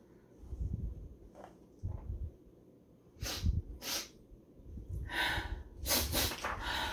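A person sniffing and snorting close to the microphone: about four short breathy bursts in the second half, over low bumps from handling.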